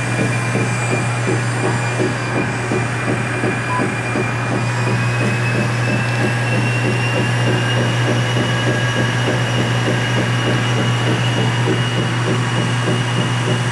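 NordicTrack 1750 treadmill running: a steady low hum with a high motor whine that rises slightly in pitch about five seconds in, over a rough, fast-repeating mechanical rattle. The brand-new machine makes a thump noise that the owner could not trace to anything broken.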